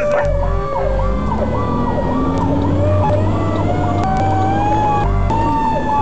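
Fire apparatus siren heard from inside the cab while responding: a siren cycles quickly up and down, together with a slower siren tone that glides down over the first second and climbs again in the middle. The engine's low rumble runs underneath.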